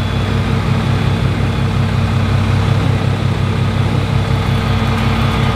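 Truck engine idling steadily with an even low throb.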